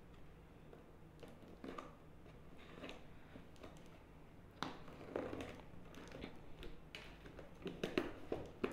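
A safety pin scratching and slitting packing tape on a cardboard box, followed by tape tearing and the cardboard flaps crackling as the box is pulled open, loudest near the end.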